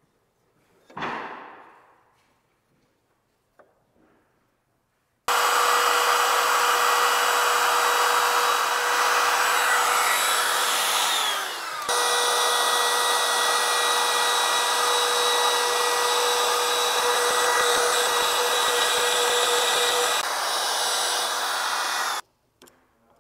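Cordless trim router running at full speed while cutting along the edge of a pine timber stair stringer. It runs steadily for about seventeen seconds, sags briefly in pitch midway and comes straight back up, then cuts off suddenly.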